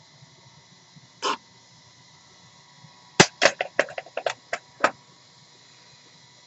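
Handling sounds of small tools and sandpaper on a work board. There is one short rasp about a second in, then a sharp click and a quick, uneven run of about seven short scratchy strokes.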